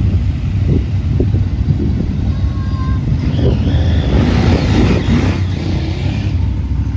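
Motorcycle engine running steadily under way, a constant low rumble, with a louder rushing noise swelling up for a few seconds around the middle.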